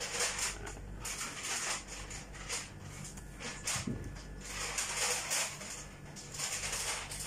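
Hands typing on a laptop keyboard and touchpad: soft, irregular clusters of key taps with rustling.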